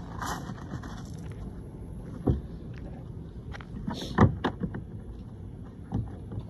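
A few sharp knocks and clicks of hard plastic, the loudest about four seconds in, as the kayak's front hatch lid is unlatched and lifted open, over a steady background hiss.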